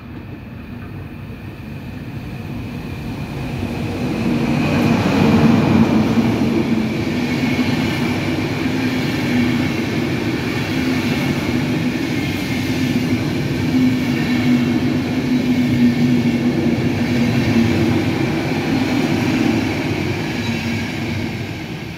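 Electric-hauled Intercity passenger train passing through without stopping. It grows louder over the first few seconds as the locomotive nears, then a loud, steady rumble of wheels on rail with a low droning hum as the coaches go by, easing slightly near the end.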